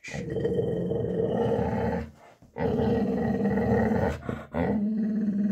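English bull terrier growling low in three long, drawn-out growls with short breaks between them. She is still worked up and on guard.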